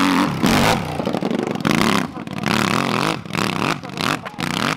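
Dirt-bike engine revving hard under load on a steep hill climb. Its pitch surges up and down with the throttle, and it drops out briefly several times in the second half.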